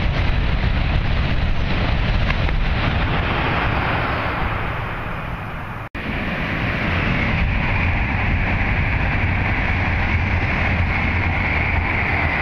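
High-speed rushing of an E5-series Shinkansen passing, with wind buffeting the microphone, fading over the first few seconds. It cuts off sharply about six seconds in. Then steady rumble and rushing return, with a high, even hum that builds through the rest, typical of an approaching high-speed train.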